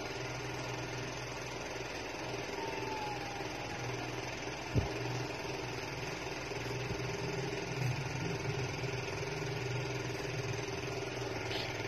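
A small motor running with a steady low hum, and a single knock about five seconds in.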